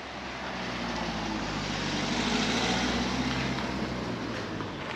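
A motor vehicle driving past, its engine and tyre noise building to a peak midway and then fading away.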